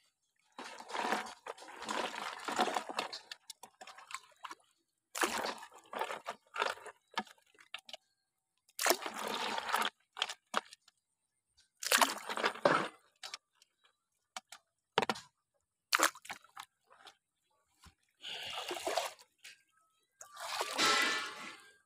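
Water splashing and pouring in short, irregular bursts with quiet gaps between, as a mesh fish trap is lifted and handled in shallow water beside a plastic bucket.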